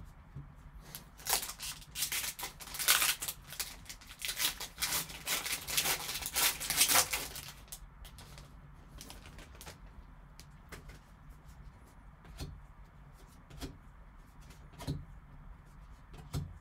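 A foil trading-card pack wrapper being torn open and crinkled for several seconds. Then quieter handling of the cards, with a few soft separate clicks as they are slid and flicked through.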